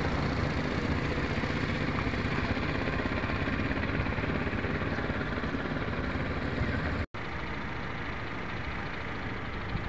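Steady low rumble of vehicle engine and traffic noise. It cuts out for an instant about seven seconds in, then carries on a little quieter.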